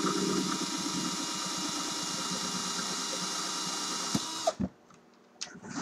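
A 14.4 V Black & Decker cordless drill runs at a steady whine, twisting 24-gauge Kanthal wire held taut in pliers. A little over four seconds in there are a couple of sharp clicks as the twisted wire snaps, and the drill stops.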